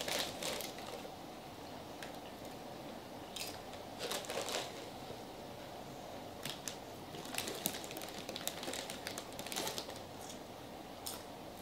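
A Doritos chip bag crinkling as a hand rummages in it, and chips being crunched while eating, in scattered short bursts.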